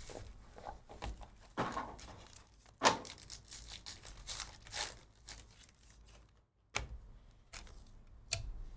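Trading card packs being torn open and their wrappers crinkled, a run of irregular rips and rustles, the sharpest about three seconds in.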